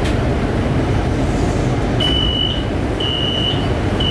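Steady low rumble of a Shanghai Metro Line 11 train standing at a platform. About halfway in, a high electronic door warning beep starts, repeating once a second, each beep about half a second long.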